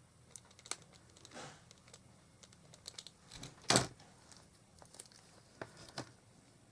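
Small die-cut card and paper pieces being handled on a craft table: scattered light taps and clicks, a short rustle about a second and a half in, and a louder knock a little before four seconds.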